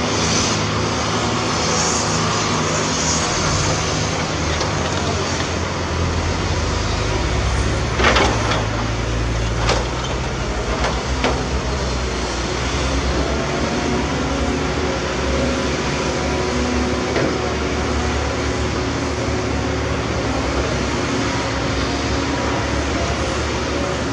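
Heavy diesel engines of an excavator and dump trucks running steadily, with a loud clatter about eight seconds in and two smaller knocks a few seconds later.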